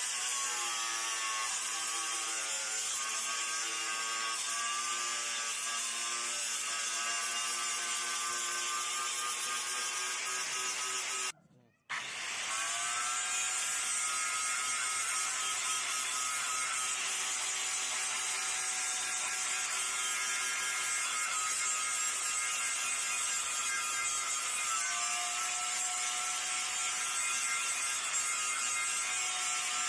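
Stick-welding arc burning with an E6013 electrode: a steady hiss with a few faint whining tones. It breaks off abruptly about twelve seconds in and strikes up again straight away.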